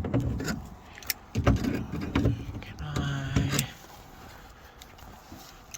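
Hand tools clicking and knocking against metal as locking pliers are fitted to the hatch lock cylinder's retaining nut inside a minivan's liftgate: a string of sharp clicks and knocks over the first few seconds, with a short low hum a little past the middle, then quieter.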